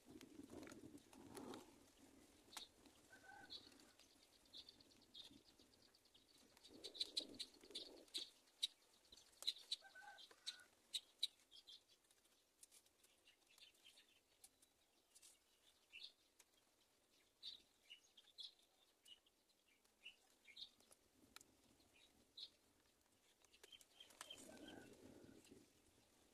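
Faint, scattered short high chirps and ticks from birds at a nest, thickest between about seven and eleven seconds in, with a few brief low sounds near the start, around seven seconds and near the end.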